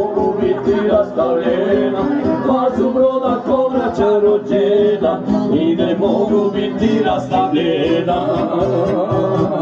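Live amplified folk band: a man sings through a microphone over violin and plucked strings, played loud through PA speakers.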